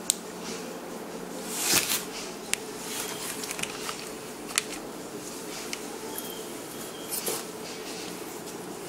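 Plastic shipping bags full of water being handled and set down in a plastic tub: crinkling and rustling, loudest about two seconds in and again near seven seconds, with a few sharp clicks over a steady low hum.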